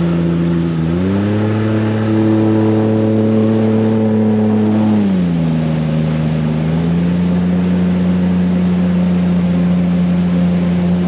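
Yamaha outboard jet motor pushing an inflatable jet boat. It revs up about a second in, holds, and eases back down around five seconds in. It then picks up slightly and runs at a steady pitch.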